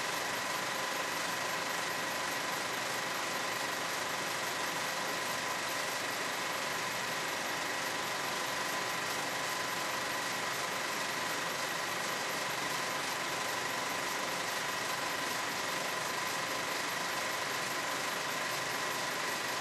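Steady hiss with a constant high-pitched hum, unchanging throughout.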